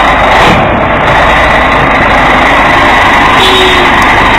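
Scania 113H truck's six-cylinder diesel engine running loudly and steadily as the truck maneuvers at low speed.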